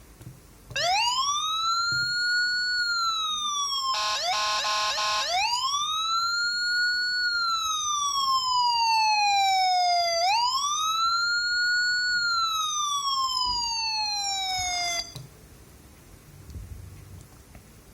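Electronic police siren wailing, its pitch rising and falling in long slow sweeps. About four seconds in a buzzy horn tone sounds for about a second, and the siren cuts off suddenly near the end.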